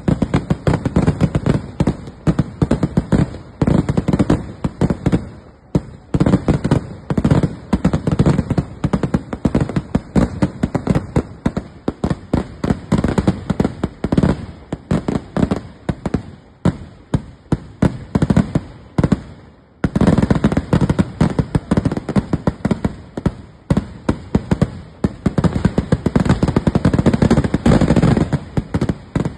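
Daylight fireworks going off in a continuous barrage of loud, rapid bangs, shells bursting overhead in quick succession. There is a brief break about twenty seconds in before the barrage resumes.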